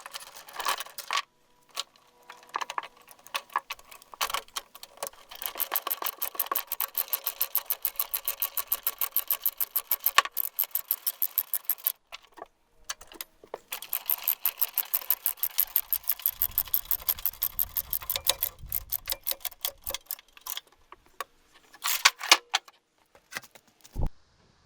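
Ratchet chain binder being cranked to tighten tie-down chains, with long runs of rapid, even clicking at about five a second, paused about halfway through, and chain links clinking and knocking in between.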